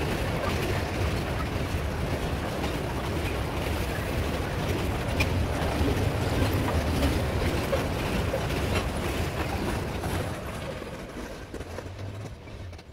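Loaded grain hopper cars of a metre-gauge freight train rolling past, a steady rumble of wheels on rail with scattered clicks. The sound fades away over the last few seconds.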